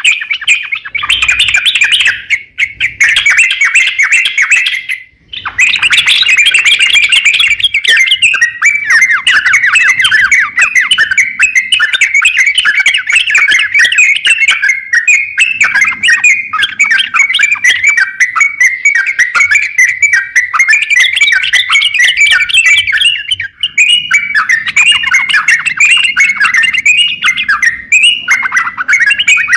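Crokcokan songbird singing continuously in a fast, dense chatter of squeaky chirping notes, with one brief pause about five seconds in. This is the prolific 'gacor' song kept as tutor material for other songbirds.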